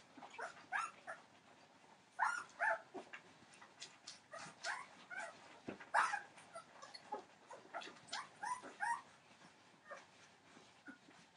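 Fifteen-day-old Entlebucher Mountain Dog puppies whimpering and squeaking in short, high-pitched calls, one after another. The loudest come about two seconds in and again about six seconds in.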